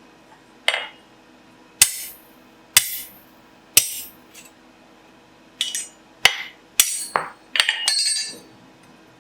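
Hand hammer striking steel on an anvil, each blow a sharp metallic clang with a brief ring. Four blows land about a second apart, then a quicker run of blows follows, and the last one rings on longer.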